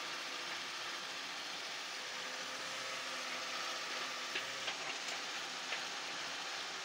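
Hitachi wheeled excavator's diesel engine running steadily under load as it digs and swings, with a few light knocks a little past the middle as the bucket works the soil.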